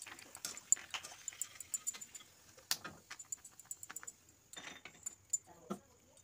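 Potato slices deep-frying in hot oil in an iron kadai, crackling with many irregular sharp pops, while a wire spider skimmer clinks and scrapes against the pan as it lifts the slices.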